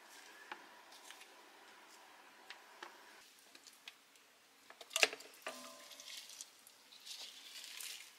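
Quiet kitchen handling sounds: faint clicks and rustles from a plastic tub of mushrooms. About five seconds in comes a sharp clink, followed by scattered knocks and soft slithering as seasoned shredded chicken and green onion are slid off a glass plate into a pot of broth.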